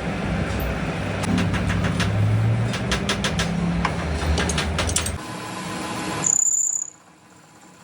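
Workshop machinery running with a low hum and many sharp clicks and ticks, changing about five seconds in. A brief high whine follows, then the noise cuts off suddenly to a quiet background.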